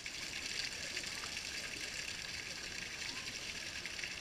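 Water from an outdoor shower spout pouring and splashing steadily onto a person rinsing underneath it.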